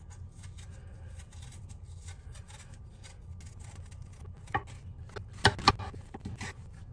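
A small knife scraping and slicing as an apple is peeled by hand, a steady run of faint strokes, with a few sharp knife knocks between about four and a half and six and a half seconds in.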